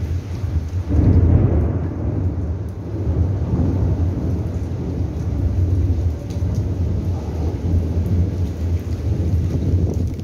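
Thunder rumbling, swelling sharply about a second in and rolling on with several more swells, over steady rain.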